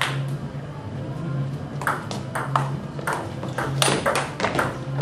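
Table tennis ball clicking off the bats and the table in a rally: one click at the start, then a quick run of clicks from about two seconds in. A low steady hum runs underneath.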